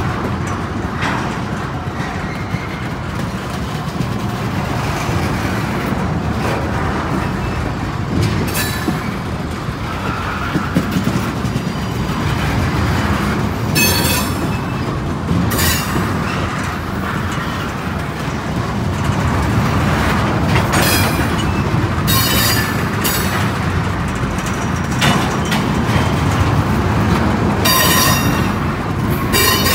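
Freight train tank cars rolling slowly past on steel rails: a steady rumble of wheels on track, broken every few seconds by short, sharp wheel clicks and brief high squeals.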